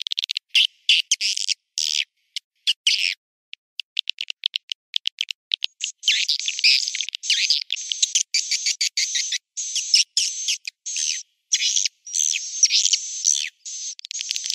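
Swiftlet calling track: rapid high-pitched chirping twitters and clicks of edible-nest swiftlets, in short broken bursts at first and almost continuous from about six seconds in. It is the lure call played from a swiftlet house to draw swiftlets in to roost and nest.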